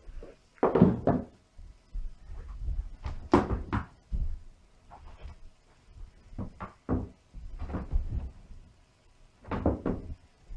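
A series of irregular knocks and thumps, a dozen or so spread unevenly, with the loudest about a second in and near three and a half seconds in.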